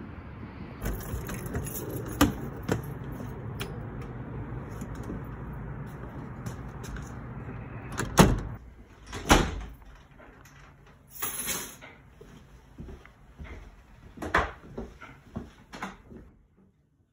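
A glass-paned door being opened and shut: two loud knocks about a second apart, followed by softer clicks and knocks. Before them, a steady low rumble runs for several seconds.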